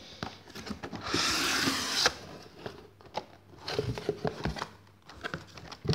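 Cardboard packaging and blister-carded toy cars being handled and shifted, with scattered clicks and knocks. About a second in there is a rustling, scraping noise that lasts about a second.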